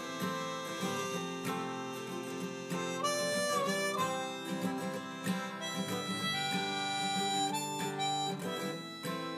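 Harmonica solo over acoustic guitar accompaniment: held notes, with one note bent down and back up about three and a half seconds in.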